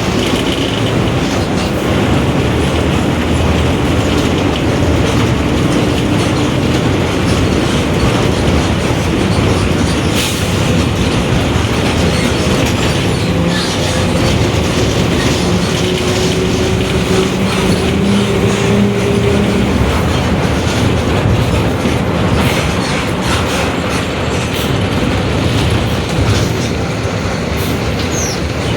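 Mercedes-Benz OF-1721 BlueTec 5 city bus under way: its four-cylinder diesel and drivetrain running steadily, with road noise, body rattles and a faint whine that slowly rises and falls in pitch, the differential drone that the uploader points out.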